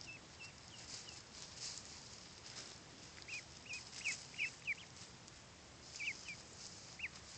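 Week-old Blue Swedish and Buff ducklings peeping: short high peeps, a few at first, a quick run of them a few seconds in, and a couple more near the end, over faint rustling.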